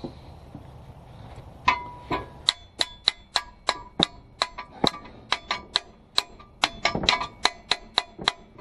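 Rapid light hammer taps on metal, starting a couple of seconds in and going on at about three a second, each with a short ring: a fastener that was not lining up being driven into place.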